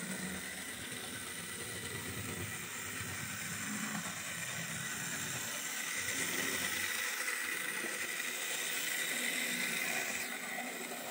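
Bachmann Spectrum HO-scale 0-6-0 model steam locomotive running along the track, its small electric motor and gears giving a steady whir with a faint hiss. It grows a little louder in the second half.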